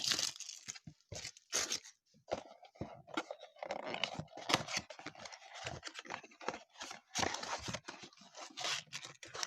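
Packaging of a 2020 Topps Big League baseball card blaster box being ripped and crinkled open: a run of irregular tearing and crackling with short pauses.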